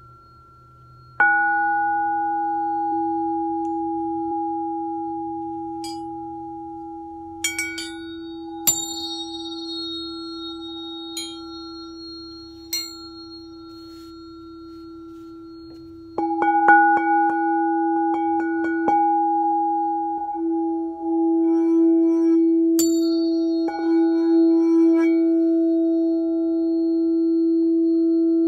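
Crystal singing bowl struck about a second in, ringing with a steady low hum and fainter higher overtones as it slowly fades. A little past halfway it is played again, with a run of quick taps, and swells to a strong sustained ring that holds. Tuning forks clink and give brief high pings in between.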